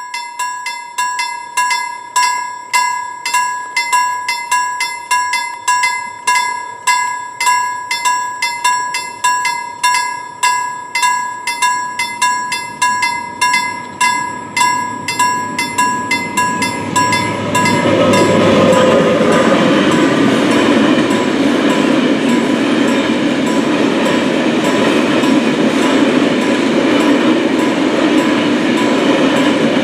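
Level crossing warning bell ringing steadily, about two strokes a second. About two thirds of the way in, a freight train's passing rumble of wagons on the rails takes over and drowns the bell out.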